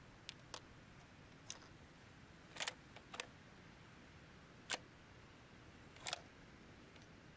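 Faint, irregular sharp clicks and light taps, about seven in all, the sharpest about two and a half and four and a half seconds in.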